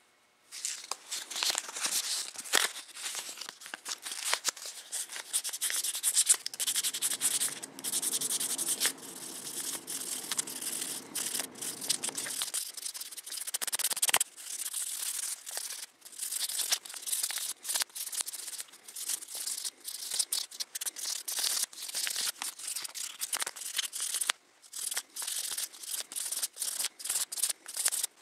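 A small metal ring being sanded by hand on abrasive paper: quick, scratchy back-and-forth rubbing strokes, stopping briefly twice.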